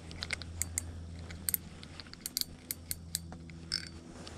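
Spinning reel and rod being worked while playing a hooked fish: irregular sharp mechanical clicks, over a low steady hum.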